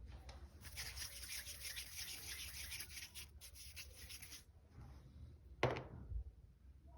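Rubbing or scraping handling noise for about four seconds, then a brief sharp knock near the end.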